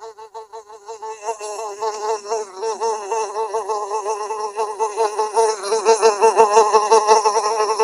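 Housefly buzzing, a wavering drone that swells in pitch and loudness as the fly moves about close to the microphone, louder from about a second in.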